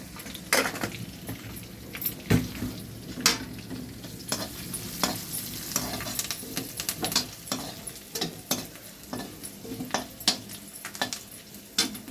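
Food frying in a pan while a spoon stirs it: a steady sizzle broken by frequent irregular scrapes and clicks of the spoon against the pan.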